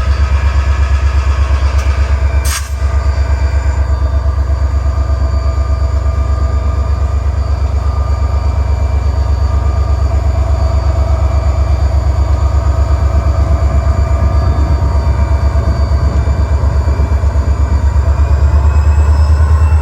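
EMD SD40 diesel locomotive's two-stroke V16 engine running close by, a loud steady low rumble with a fast, even pulse and faint whining tones above it. A brief sharp click about two and a half seconds in, and the engine gets a little louder near the end.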